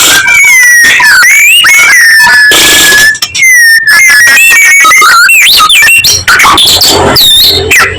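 White-rumped shama (murai batu) singing loudly: a fast, varied run of sliding whistles with a long held whistle in the first half, mixed with a few short harsh notes.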